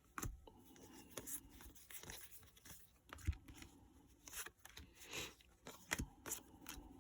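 Pokémon trading cards being handled and sorted by hand: scattered light taps and slides of cards with soft papery rustles.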